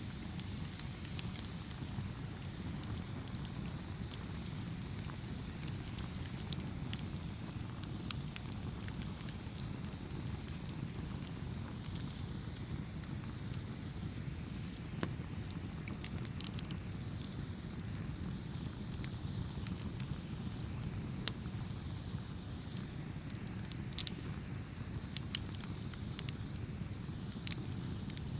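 Campfire burning with a steady low rumble and scattered sharp crackles and pops from the burning wood.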